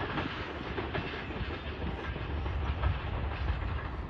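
A rail vehicle running through on the main line: a steady low rumble with wheels clicking over the rail joints.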